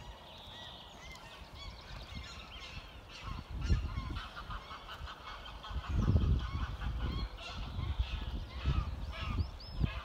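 Geese honking repeatedly, with smaller birds calling higher up. Several low rumbles come through, the loudest about six seconds in.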